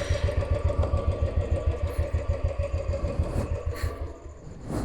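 Motorcycle engine idling just after being started with the clutch held in, an even low pulse about ten beats a second, dying away about four seconds in.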